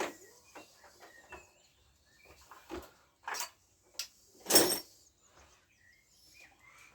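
Hand work on a scooter engine: a series of irregular knocks and clanks of tools and metal parts, the loudest about four and a half seconds in.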